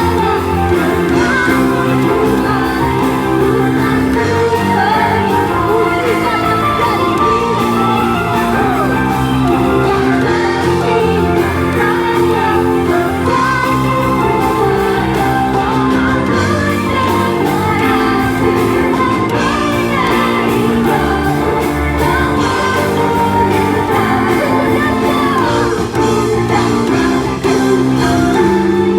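Live contemporary worship song played by a band with keyboards, and voices singing the melody over sustained chords, picked up by a phone's microphone in the room.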